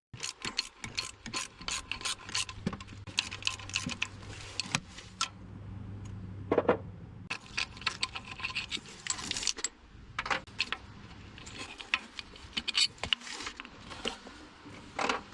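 Milwaukee 1/4-inch drive ratchet with a 10mm socket clicking in repeated bursts as the two 10mm bolts holding an EGR valve are loosened.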